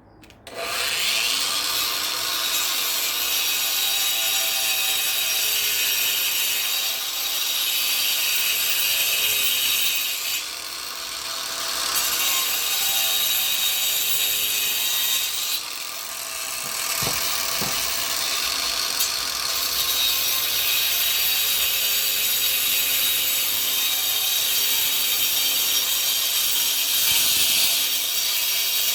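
Hyundai 20V cordless angle grinder starting up about half a second in and grinding old mortar off a brick. The motor whine wavers in pitch as the disc bites into the mortar, and the level dips briefly a few times as the load eases.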